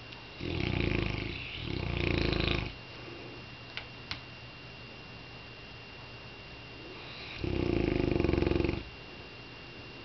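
Saint Bernard snoring in deep sleep: two loud snores back to back in the first three seconds, then another about seven and a half seconds in, with two faint clicks between them.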